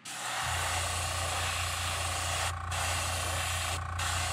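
Airbrush spraying paint in a steady hiss that breaks off briefly twice, over a steady low motor hum that starts just after the spraying begins.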